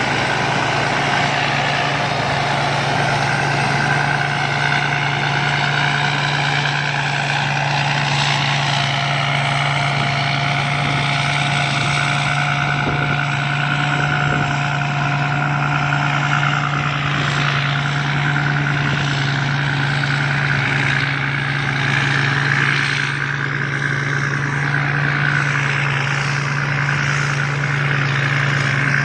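Rice combine harvester running steadily: a constant low engine hum with a steady high whine over it.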